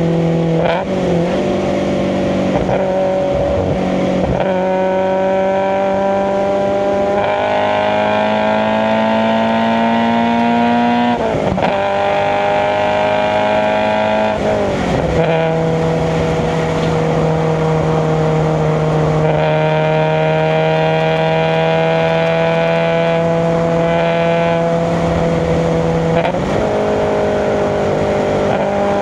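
Subaru BRZ's FA20 flat-four with SARD individual throttle bodies pulling under way, its pitch climbing slowly and dropping sharply at several gear changes.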